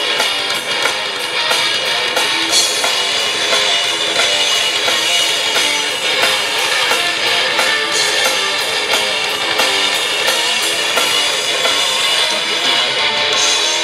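Rock band playing live: electric guitars, bass guitar and drum kit driving a steady beat. The low end drops out shortly before the end.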